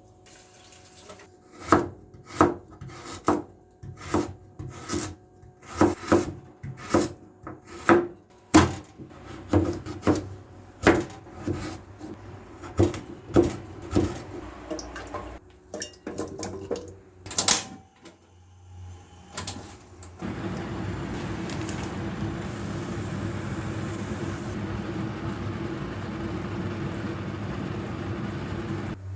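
Knife chopping on a wooden cutting board: irregular sharp strokes, about one or two a second. About twenty seconds in the chopping stops and a steady rushing hiss begins.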